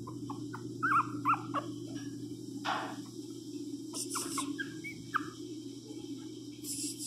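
A newborn miniature pinscher puppy whimpering: a run of short, high squeaks in the first couple of seconds and another about five seconds in, with a brief rustle near the middle.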